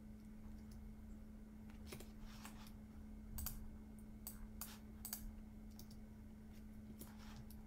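Faint computer keyboard and mouse clicks: about a dozen irregular taps starting about two seconds in, over a steady low electrical hum.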